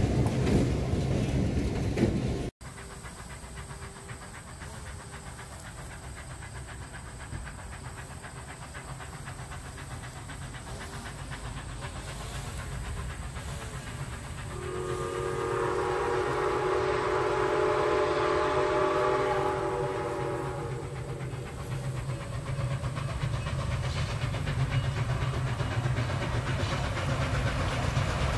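A steam locomotive's chime whistle, Grand Trunk 0-6-0 No. 7470, blows one long chord of several tones for about six seconds around the middle, over a low steady rumble of the train. It opens with a diesel locomotive running close by, cut off abruptly after about two seconds.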